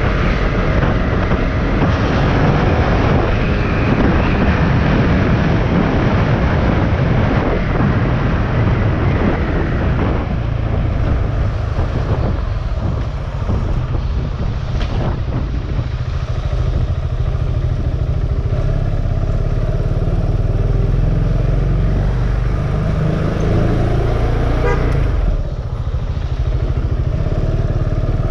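Motorcycle engine running under way, its revs rising and falling as it accelerates and eases off. Loudness dips briefly a little before the middle and again near the end.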